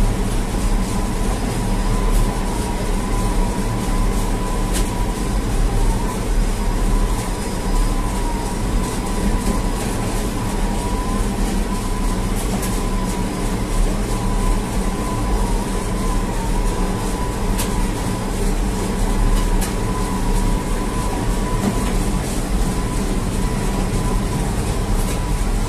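Bakery dough-dividing machine running steadily: a continuous low mechanical hum with a steady high whine over it and a few sharp clicks.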